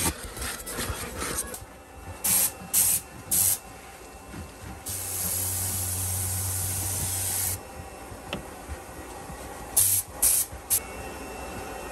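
Handheld compressed-air blow gun giving short hissing blasts: three quick bursts, then one longer blast of about two and a half seconds, then three more quick bursts near the end.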